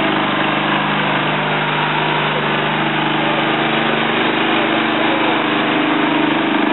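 An engine running steadily: a continuous, even hum with a few steady tones in it.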